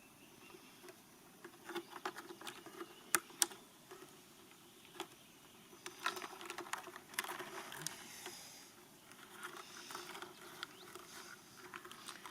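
Scattered, irregular clicks and light taps, with two sharper clicks a little past three seconds in, as of small handwork with tools or materials.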